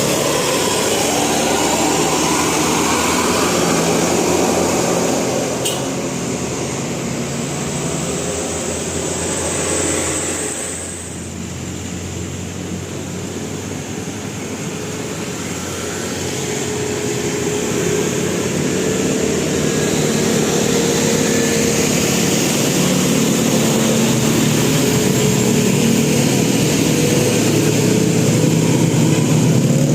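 Road vehicles going past with their engines running. The sound fades about ten seconds in, then builds again toward the end.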